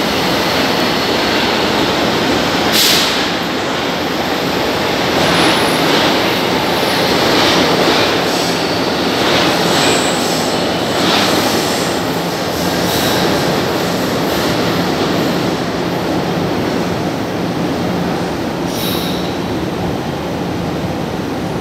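São Paulo Metro Line 1 subway train running out of the underground station into the tunnel: a loud steady rumble of steel wheels on rail, with scattered clacks and a few brief high wheel squeals. It fades slightly toward the end as the train draws away.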